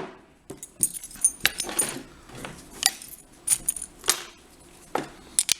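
Metal lock and tools being handled: a string of irregular sharp metallic clicks and clinks, some with a brief high ring.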